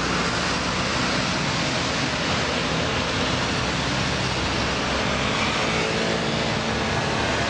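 Steady, dense road traffic noise at a busy roundabout: vehicle engines and tyres blend into one unbroken wash with a low engine hum underneath.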